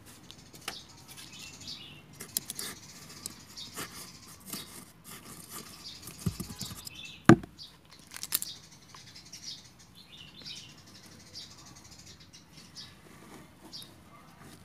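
Fingers and a stick working damp, crumbly potting mix in a plastic bucket to make a planting hole: scattered soft crackling and rustling, with one loud thump about halfway through. Small birds chirp now and then.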